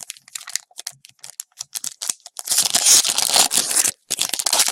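Trading cards being handled with small clicking flicks, then a foil card-pack wrapper crinkling and tearing loudly for about a second and a half, from about two and a half seconds in, with lighter crinkles after.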